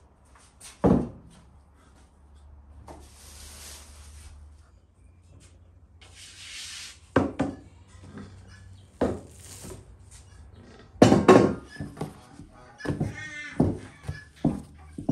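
Bread dough being handled and kneaded on a floured wooden board: several soft thuds of dough and hands on the wood, with rubbing and a couple of brief rustles in between.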